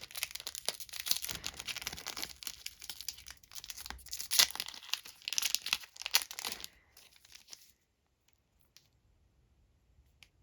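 Foil trading-card booster pack being torn open and its wrapper crinkled, a dense crackling rustle for about seven seconds, then a few faint clicks.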